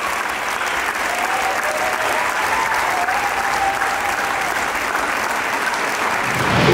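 Large audience applauding steadily, an even clapping that holds for the whole stretch.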